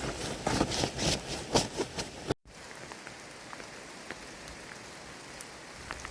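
Rain falling steadily, with scattered single drops ticking. For the first couple of seconds it is covered by loud, irregular rustling and knocks, which cut off suddenly.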